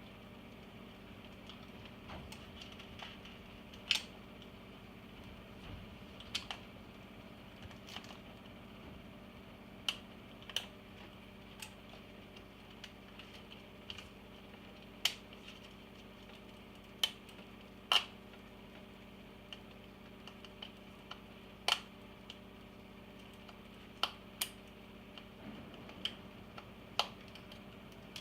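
Scattered sharp clicks and taps, one every second or two, from hands and tools working on the iMac G3's plastic and metal parts, over a faint steady hum.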